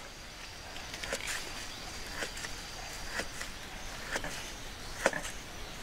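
Kitchen knife slicing a block of bacon on a wooden cutting board, the blade knocking the board about once a second.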